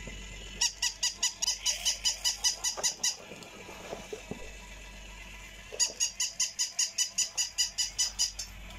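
Battery-operated plush toy dog yapping with quick, high-pitched electronic barks, about five or six a second. It gives two runs of these, each about two and a half seconds long, with a pause of roughly three seconds between them.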